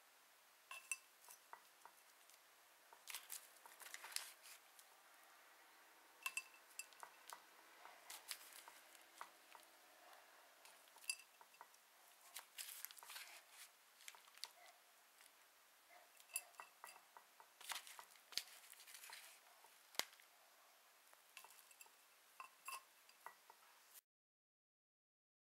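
Faint scrapes, taps and clicks of hand repotting: a plastic scoop digging into potting mix and knocking against a terracotta pot, in irregular bursts. It cuts off suddenly near the end.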